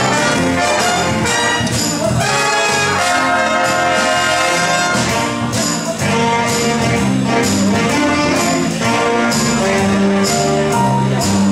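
A jazz big band playing: saxophone, trumpet and trombone sections over piano, bass and drums, with a steady beat and a moving bass line.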